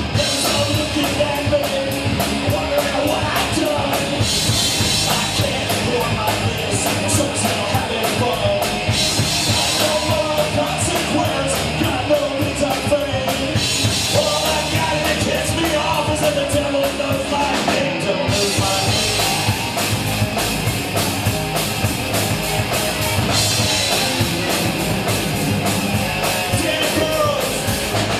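Rock music: a band with a driving drum kit and a singer.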